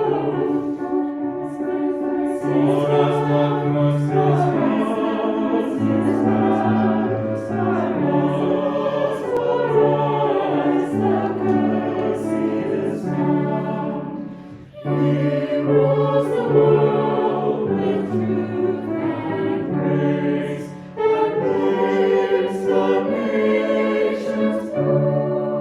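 A choir singing a sacred piece in harmony over held low notes, with short breaks between phrases.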